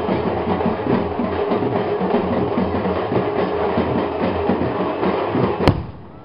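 Loud, continuous festival drumming mixed with the din of a crowd. Near the end comes a single sharp crack, and the sound then drops away.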